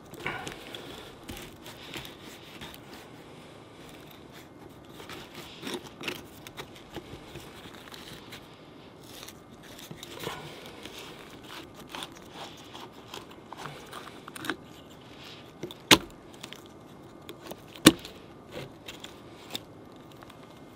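Plastic compression fittings on a black polyethylene water pipe being handled and screwed together by hand: scattered clicks, creaks and rustles, with two sharp snaps about two seconds apart near the end.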